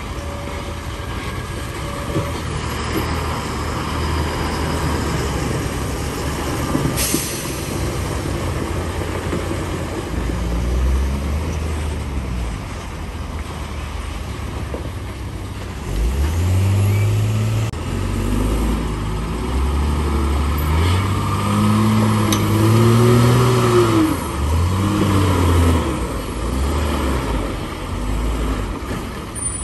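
Heavy trucks' diesel engines labouring through mud: a steady low rumble, with the revs rising and falling again and again in the second half as a truck pulls through the ruts. A brief sharp noise about seven seconds in.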